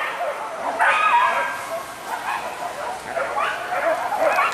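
Hunting dogs yelping and baying in short, high cries that rise and fall in pitch, some overlapping: a pack giving tongue on the trail of a wild boar.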